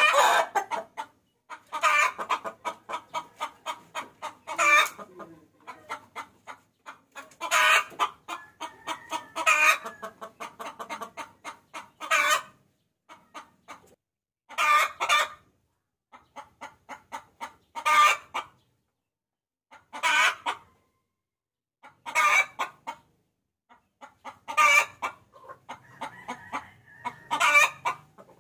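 Hen cackling, runs of rapid clucks each rising to a louder drawn-out note, repeated every two to three seconds: a hen lure call used to attract roosters.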